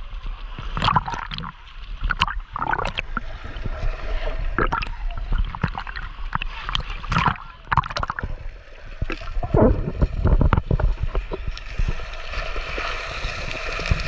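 Sea water splashing and sloshing around a camera held at the surface while swimming, with gurgling as it dips underwater; irregular splashes throughout.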